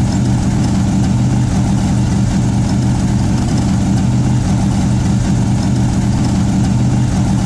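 Car engine idling steadily, a low even running note with a regular pulse.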